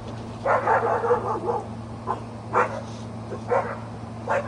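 Dogs barking: a quick run of barks about half a second in, then single barks about once a second.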